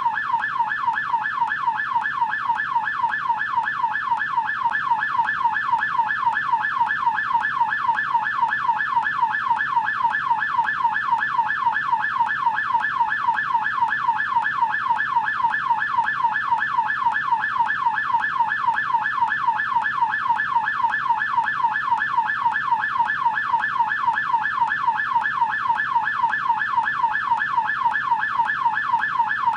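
US police electronic siren on its yelp setting: a fast, continuous wail sweeping up and down in pitch several times a second.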